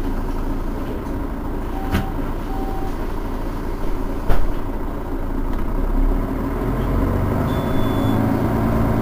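Mercedes-Benz Citaro city bus's diesel engine idling steadily, with two short beeps about two seconds in and a sharp click a little past four seconds; the engine note grows slightly stronger near the end.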